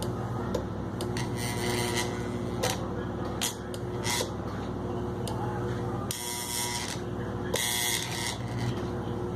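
Electric floor fan's motor running with a steady hum, broken a few times by short rustling or scraping handling noises and light clicks.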